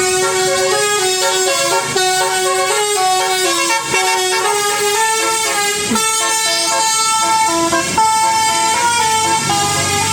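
Multi-tone 'telolet' musical horn on an intercity bus playing a quick melody, the notes changing every fraction of a second without a break. A low rumble joins near the end.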